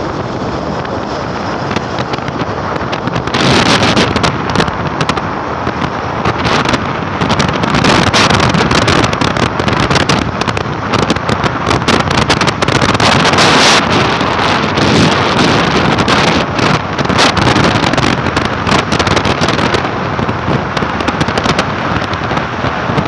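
Wind buffeting the phone's microphone on a moving two-wheeler at highway speed: loud, gusty rushing with rapid crackling thumps, growing harder about three and a half seconds in and staying so, with road and vehicle noise underneath.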